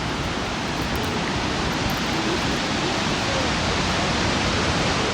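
Steady rushing of Kaieteur Falls, a large single-drop waterfall on the Potaro River: a loud, even noise with no breaks.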